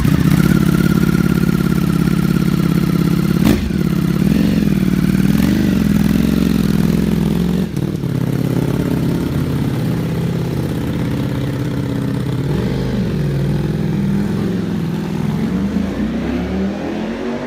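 Ducati Streetfighter V4S's 1103 cc V4 engine running as the bike pulls away and rides off, the revs rising and falling a few times. A sharp click about three and a half seconds in and another near eight seconds.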